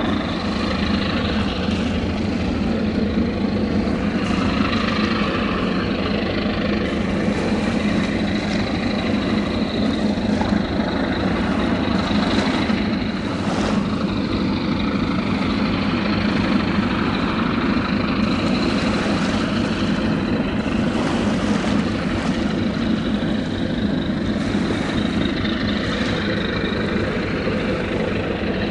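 Large engine running steadily: a low, even drone with a constant hum and no changes in pace.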